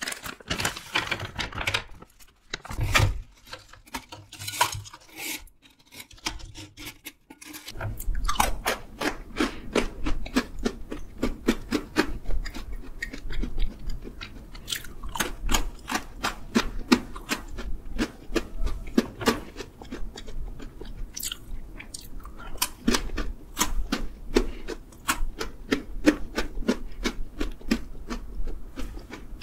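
Crunching and chewing of chocolate-coated pretzels, a fast continuous run of crisp crackles from about eight seconds in. Before that, scattered rustling and crackling of the snack bag being handled.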